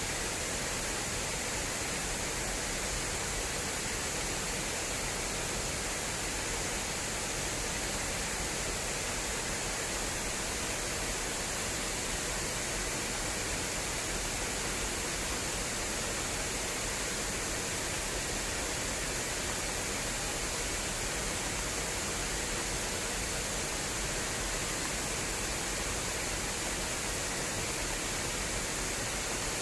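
Fast water rushing steadily through an irrigation channel, an even full-range rush without breaks.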